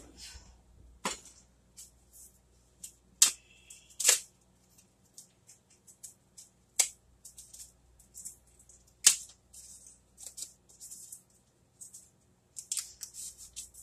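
Paper wrapper crinkling and crackling as it is peeled off a stick of butter by hand, with scattered sharp snaps and taps and a quick flurry of crinkling near the end.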